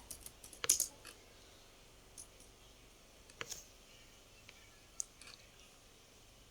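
Scattered computer clicks: a short flurry just under a second in, then single faint clicks every second or two over a low background hiss.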